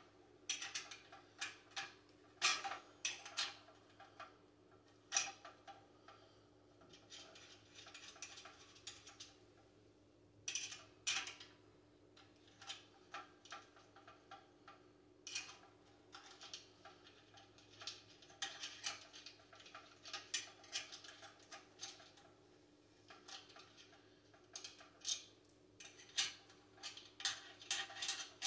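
Screws being loosened and backed out of the heater's metal parts with a hand tool: irregular runs of small clicks and ticks, with brief pauses between runs.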